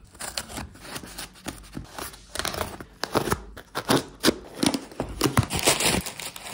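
A cardboard shipping box being opened and unpacked by hand: a quick run of short, irregular scrapes, tearing and rustling from the packing tape, cardboard flaps and paper filler.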